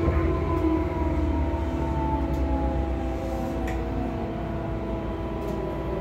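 Tobu 9000 series electric train with armature chopper control, heard from inside the motor car as it slows: its motor whine falls steadily in pitch over a steady low hum and steady higher tones, with a few light clicks.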